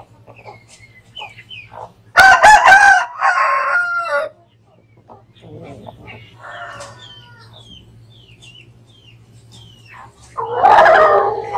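Bangkok gamecock roosters crowing: one loud crow lasting about two seconds begins about two seconds in, a fainter crow follows around six seconds, and another loud crow comes near the end.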